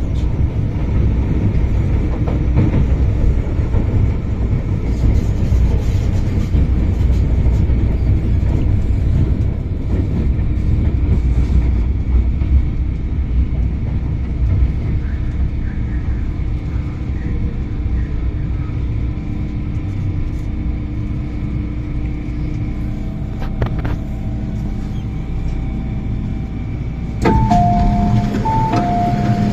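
Low rumble of an MTR M-Train electric multiple unit heard from inside the carriage by a door as it slows into a station platform. About 27 s in the sound suddenly gets louder and a two-tone door chime sounds, a higher and a lower note alternating.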